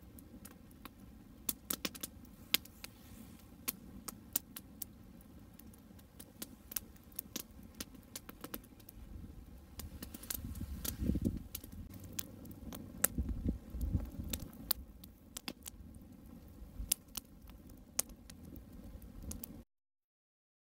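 Campfire crackling: sharp, irregular pops and snaps over a low rumble that swells twice in the middle. The sound cuts off abruptly about a second before the end.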